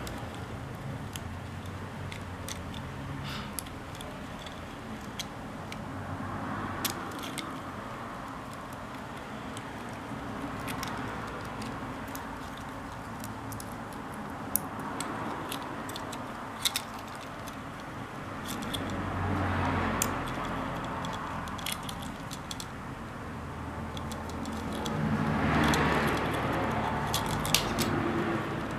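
Scattered light clicks and small rattles of hard parts being handled, over a steady background hiss. Twice, about two-thirds of the way through and again near the end, a broad swell of louder noise with a low rumble rises and fades.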